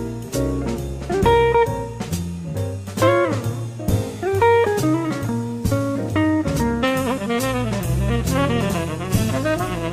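Jazz band playing: a bending guitar lead over bass and drum kit, with saxophone and horns thickening the sound in the last few seconds.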